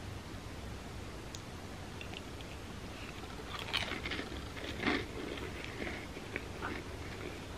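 A person chewing and crunching a graham cracker coated in thick chocolate peanut-butter dip, with a cluster of louder crunches about halfway through.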